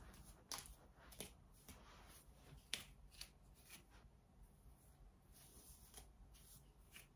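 A comb being pulled through a human-hair wig: faint, irregular rustling strokes, the sharpest about three seconds in.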